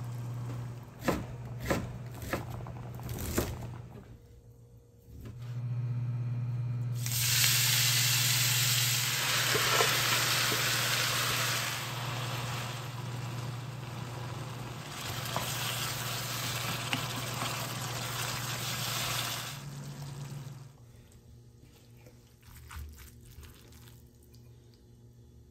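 Bean sprouts, chicken and green onion sizzling as they are stir-fried in a frying pan. The sizzle is loud for about twelve seconds and then dies away. A few sharp knocks come before it, and a steady low hum runs underneath.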